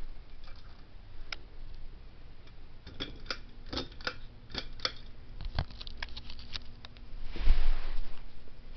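Evergo spinner ceiling fan being switched on at low speed: a run of sharp clicks from the switch and pull chain, then a faint steady motor hum as it starts turning. Near the end there is a brief loud rush of air noise.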